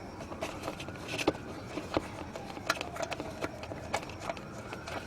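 Irregular clicks and taps, a little louder about a second in, over the slow rise and fall of a faint siren.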